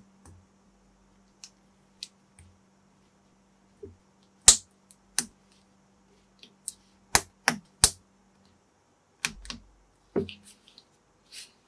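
Unofficial Lego-compatible plastic bricks being pressed together by hand, giving a series of separate sharp snapping clicks. The loudest comes about four and a half seconds in, with a quick cluster around seven to eight seconds.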